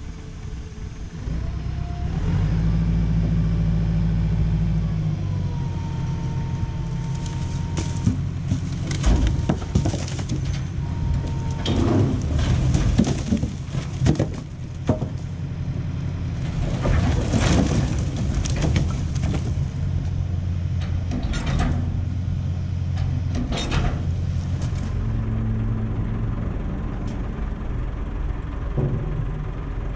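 Tractor engine revving up about two seconds in to raise a hydraulic tipping trailer, with a thin whine in the first seconds. Then a long run of wood clattering and knocking as logs and stumps slide out of the tipped bed onto a pile, heaviest between about eight and twenty-five seconds, over the steady engine. The engine note changes near the end.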